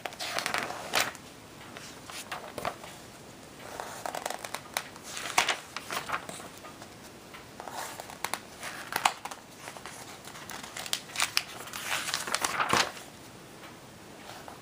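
Magazine pages being turned and handled: paper rustling and crinkling in a series of short bursts.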